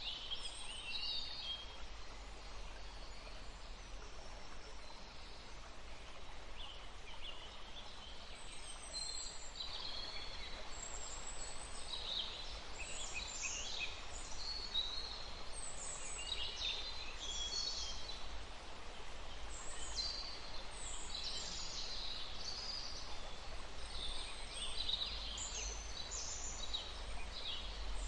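A woodland stream running steadily, with several small birds chirping and singing over it, their calls busier from about a third of the way in.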